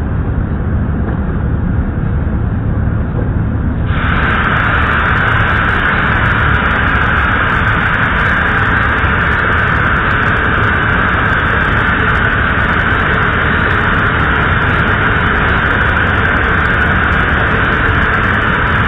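Steady, loud machinery rumble at an effluent treatment plant. About four seconds in, a hiss comes in suddenly and then holds steady.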